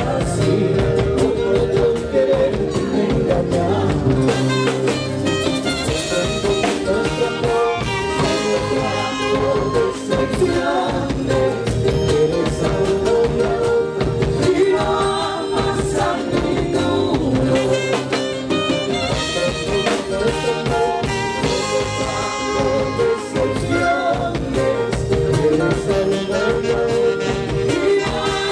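Live band music: electric guitars, drums and saxophone with a quena, the Andean bamboo flute, playing the melody at the start and near the end.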